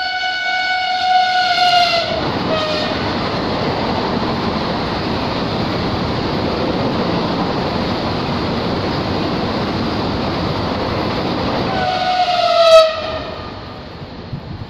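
Vande Bharat Express (Train 18) electric trainset passing at high speed. A long horn blast drops in pitch as the front goes by about two seconds in, followed by some ten seconds of steady rush from the passing coaches. Near the end a second, loudest horn blast falls in pitch, then the sound fades quickly as the train draws away.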